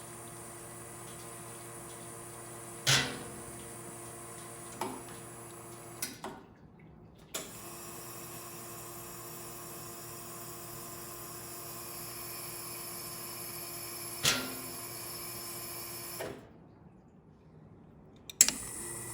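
La Marzocco Strada EE espresso machine running with a steady pump hum, which cuts out twice for about a second each time. Several sharp clicks and knocks are heard along the way.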